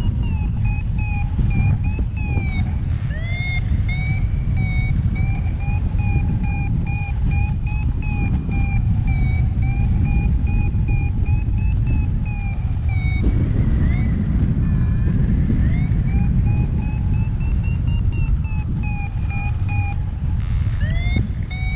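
Paragliding variometer beeping a quick train of short electronic climb tones, the pitch drifting up and down as the lift changes: the sign that the glider is climbing. Under it, steady wind rush on the microphone.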